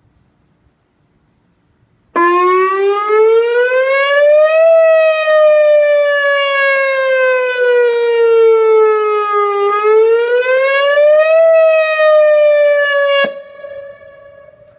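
Early-warning siren being tested, sounding a wailing tone that starts abruptly about two seconds in, rises, falls slowly, rises again, then cuts off sharply near the end, leaving a fainter steady tone.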